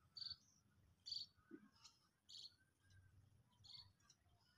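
Faint, quiet outdoor ambience with a small bird chirping: about five short, high calls at uneven intervals.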